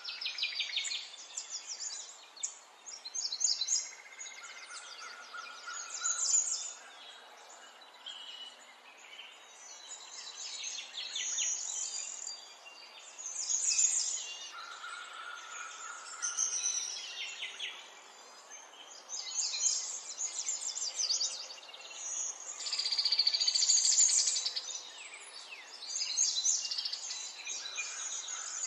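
Small songbirds chirping and trilling in a string of quick, high-pitched phrases with short pauses between them.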